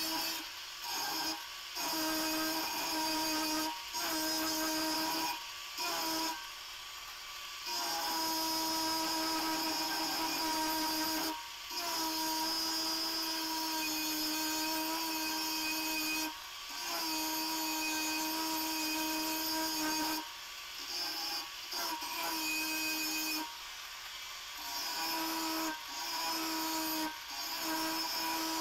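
Angle grinder grinding a spring-steel kukri blade: a steady motor whine with a grinding hiss, broken by short drops every few seconds.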